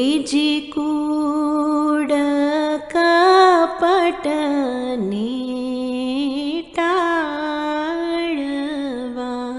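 A solo voice singing a slow, ornamented chant: long held notes with wavering pitch, sung in phrases with brief breaks between them.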